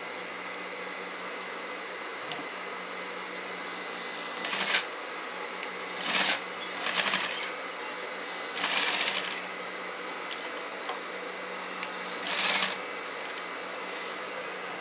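Sewing machine stitching in five short runs of under a second each, topstitching along the edge of a pocket, over a steady hum.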